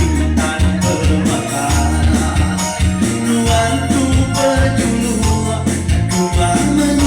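Band playing an instrumental passage of a song, with sustained bass notes and a steady beat.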